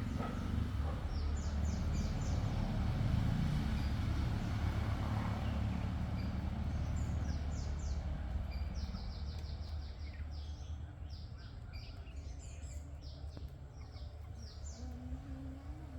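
Parrots chirping in rapid runs of short, high calls, thickest from about halfway on, over a steady low rumble of background noise that fades somewhat after the first half.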